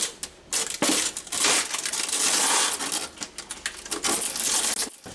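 Plastic packaging crinkling and rustling loudly, with scattered small clicks, as a bag of small plastic sink-drain fittings is handled.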